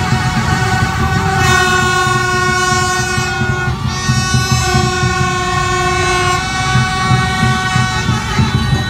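Many horns held and sounding together in a steady, overlapping din, some warbling, over the constant running of a dense crowd of motorbike engines.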